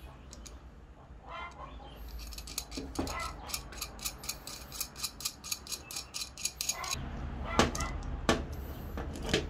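Small metal clicks of a steel nut being spun by hand along a threaded bolt, a quick run of about four light clicks a second. Near the end come a few louder metal knocks as the bolt and washer are fitted to the burner's bracket.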